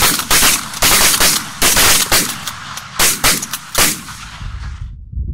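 Shotguns fired by several goose hunters in a rapid, overlapping volley: about ten sharp shots in four seconds. The firing stops near the end, leaving only a low rumble.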